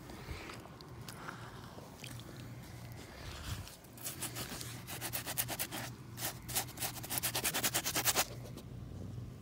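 Gloved hand rubbing wet mud over a rubber Muck boot in fast back-and-forth strokes. After a few seconds of light scuffing the strokes start about four seconds in and stop abruptly about eight seconds in.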